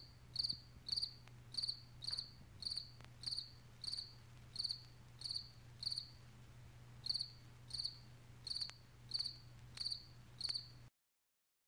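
A cricket chirping steadily, about two short trilled chirps a second, over a faint low hum. The sound cuts off suddenly near the end.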